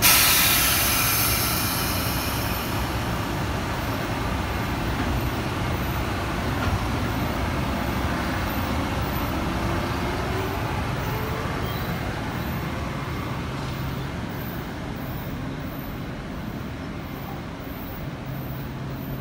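Metro-North Budd M2 electric multiple-unit train running slowly, a steady low electrical hum with a faint rising motor whine about eight seconds in. A loud hiss at the start fades away over about two seconds.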